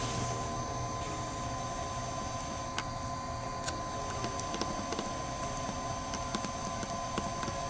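Steady hum of a hot air rework gun blowing, with scattered small clicks and crackles as a metal scraper blade chips and pries the shattered back glass off an iPhone XS Max. The clicks come more often from about three seconds in.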